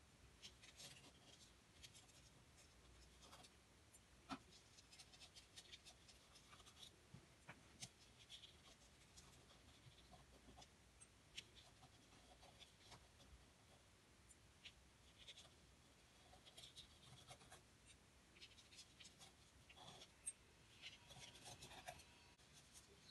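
Faint, irregular scratching and light ticking of an inked brush tip drawing lines across paper.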